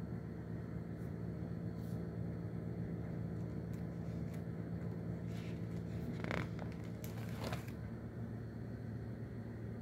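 Pages of a spiral-bound stamp album being handled and turned: a few faint clicks and a brief stiff rustle of the pages about two-thirds of the way through, over a steady low hum.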